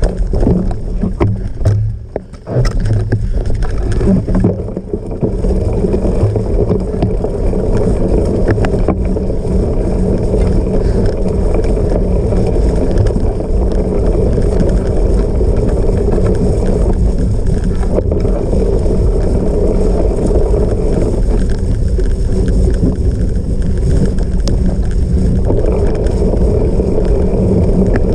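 Steady wind rush and low rumble from a cyclocross bike being ridden off-road, with a light rattle, briefly quieter about two seconds in.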